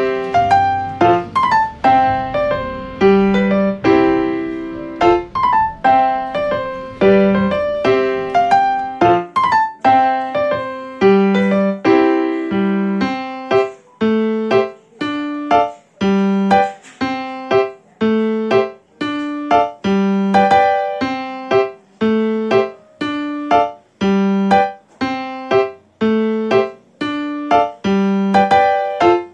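Background music: solo piano playing a steady, even stream of notes.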